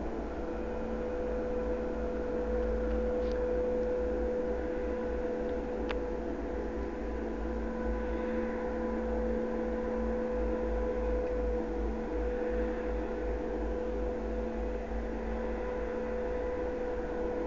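Condor Rapide wave-piercing catamaran ferry's engines heard across the water as a steady drone with a constant hum, while it manoeuvres slowly. Wind rumbles on the microphone underneath.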